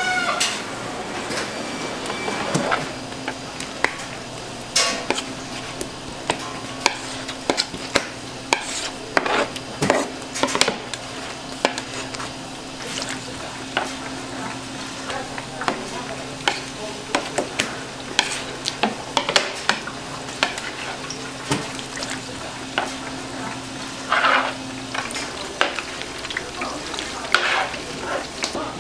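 Fish cake paste frying in the hot oil trough of an automatic fish cake machine, sizzling steadily. Frequent sharp metallic clicks and knocks sound over the sizzle, and a steady low hum runs through most of it.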